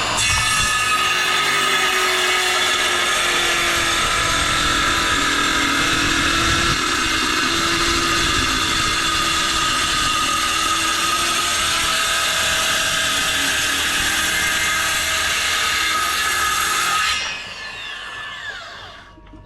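Cordless electric power tool, such as a saw or planer, running steadily at full speed while cutting wood, with a high whine. About 17 seconds in it is switched off and winds down with a falling pitch.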